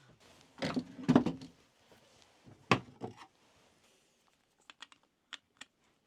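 Knocks and clinks of a metal hand plane and its parts being handled and set down on the bench: two clusters of clatter, about a second in and near three seconds, then four light ticks near the end.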